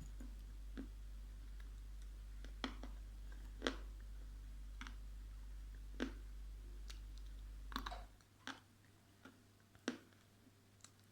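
Dry Ural clay being bitten and chewed: crisp, separate crunches about once a second, a few of them louder. A low hum stops about eight seconds in.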